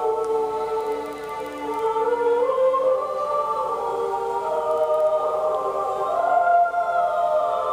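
Film-trailer score of slow, sustained tones that shift gradually in pitch, with choir-like voices.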